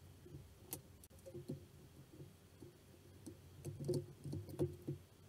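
Light knocks and clicks of a Kalibrgun Cricket air rifle's metal action being handled and fitted into its wooden stock. The knocks are scattered at first and cluster more closely about four to five seconds in.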